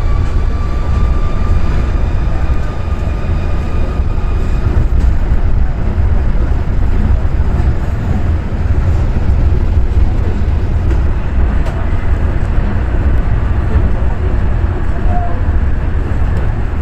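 Osaka Monorail train running along its guideway, heard from inside the front of the car: a loud, steady rumble of its rubber tyres on the concrete track beam, with a faint motor whine in the first few seconds that fades out.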